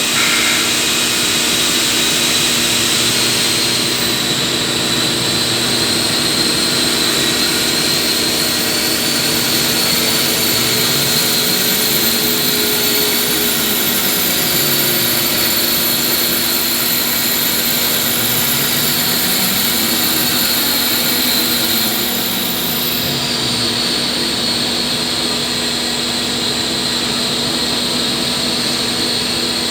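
CNC lathe running while turning a 150 mm pulley: a steady machine hum with a high whine over it. A lower tone rises and falls twice around the middle.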